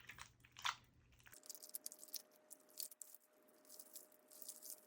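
Slime with soap mixed in being kneaded and stretched by hand, giving faint sticky clicks and crackles.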